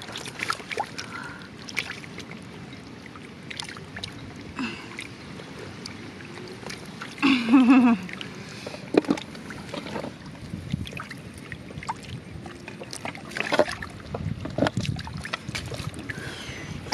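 Hands sloshing and splashing in shallow muddy water and mud while fish are groped for, with scattered small splashes and clicks. About seven seconds in, a short wavering voice, the loudest moment.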